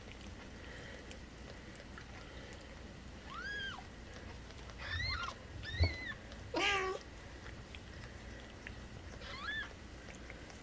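Newborn kittens mewing in short, high-pitched squeaks, several times, with one longer, lower meow a little past halfway. A brief knock sounds just before that meow.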